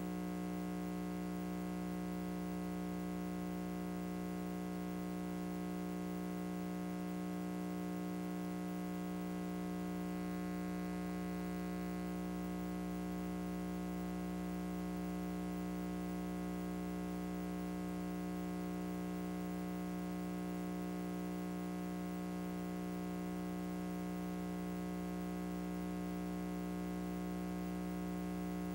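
Steady electrical mains hum and buzz, one unchanging low tone with higher overtones and a faint hiss.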